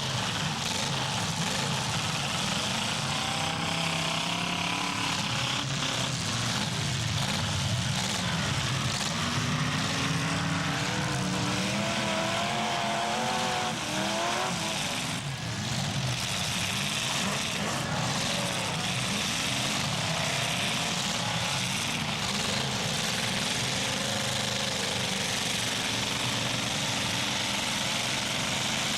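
Several demolition derby cars' engines running hard and revving up and down together, in a continuous loud din, with a few brief knocks about halfway through.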